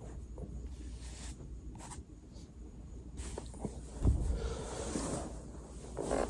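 Rustling and shifting of a body on a foam roller, with a dull thump about four seconds in.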